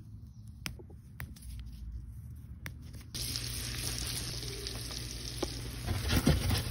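A few light clicks, then, about halfway through, food starts sizzling in a hot frying pan: a steady hiss, with a few low knocks near the end.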